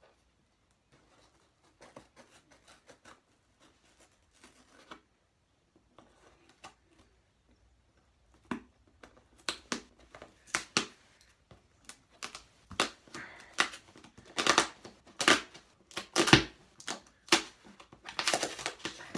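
Cardboard parcel being cut and torn open by hand: irregular crunching, snipping and tearing sounds, sparse and faint at first, then louder and denser from about halfway through.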